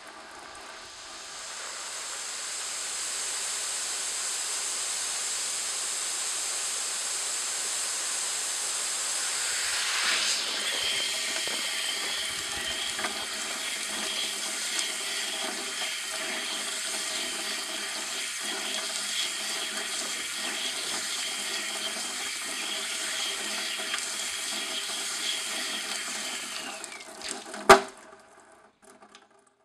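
Water running hard through a vortex shower head with five vortex chambers, a steady rushing spray with a thin high whistle that comes in about ten seconds in. The flow cuts off near the end with a sharp click.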